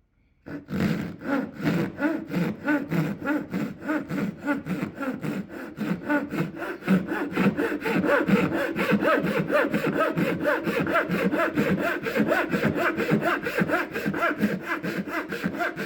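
A fine-tooth Japanese pull saw (21 TPI SK5 steel blade) cutting wood in fast, even strokes, about three a second. The sawing starts about half a second in.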